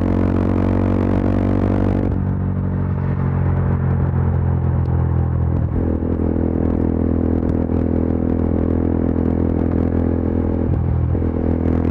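Yezdi Adventure's single-cylinder engine and exhaust running on the highway, heard from the rider's helmet. The hiss above the engine falls away about two seconds in. The engine note breaks briefly and changes about six seconds in and again near the end.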